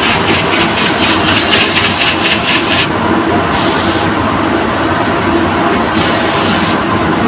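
Gravity-feed paint spray gun hissing steadily as it sprays clear coat onto a car tailgate, over the spray booth's air noise. The sharp top of the hiss drops out briefly three times in the second half.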